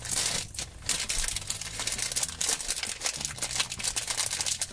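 Plastic blind bag crinkling continuously as fingers handle it and work at it to open it.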